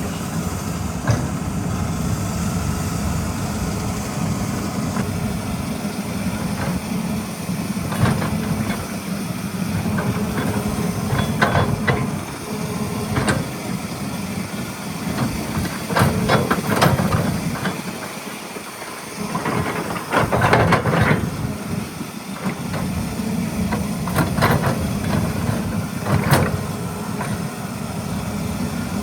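Diesel engine of a Caterpillar 320E excavator running steadily while it works, with sharp knocks and clanks every few seconds. Louder stretches of higher-pitched noise come about two-thirds of the way through, and the engine rumble briefly drops away between them.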